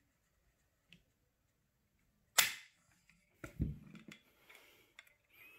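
One sharp click about two and a half seconds in: a Benelli semi-auto shotgun's trigger breaking and the hammer falling as it is dry-fired against a trigger pull gauge, at about 5.75 pounds of pull. A few duller knocks follow about a second later.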